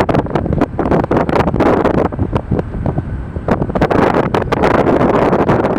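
Strong gusty wind buffeting the microphone: a loud rumbling roar broken by constant crackling pops.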